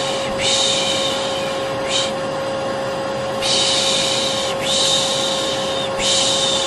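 Vacuum cleaner motor running with a steady hum and whine. Over it, a voice shushes a baby to sleep with long 'shhh' sounds about a second each, about four in all, plus one short 'sh' after the first.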